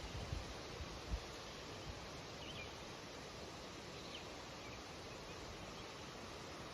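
Wind rustling through birch leaves in a steady hiss, with a few faint, short bird chirps around the middle. A few low thumps in the first couple of seconds.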